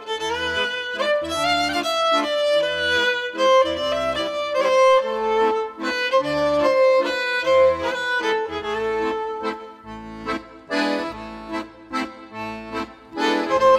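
Background instrumental music: a melodic tune over a pulsing bass line.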